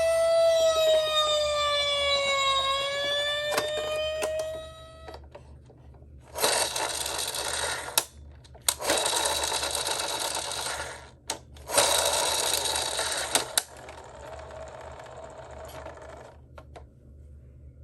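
A siren wails for about five seconds, dipping in pitch and rising again, then cuts off. Then come three separate bursts of rattling, rolling noise, each lasting a couple of seconds: toy minicars running down a slope. A fainter rolling stretch follows.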